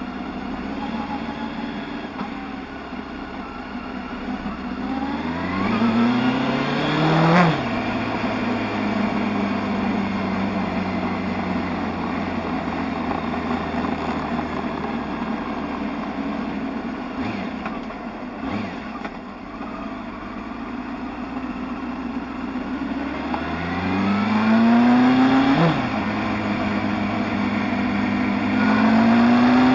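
Motorcycle engine under way, pulling up through the revs twice, each time climbing steadily and then dropping sharply as it shifts up, with steady cruising in between and a third pull starting near the end.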